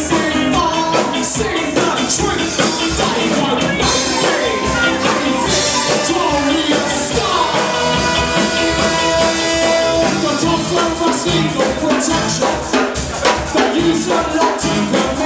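Live ska band playing: horn section with saxophone and brass over electric guitars and a drum kit beat, with singing.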